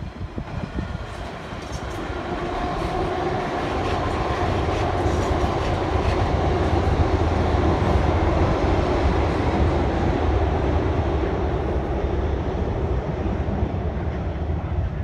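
Amtrak Cascades Talgo passenger train crossing a steel truss railroad bridge. It makes a steady rumble that builds over the first few seconds, then holds.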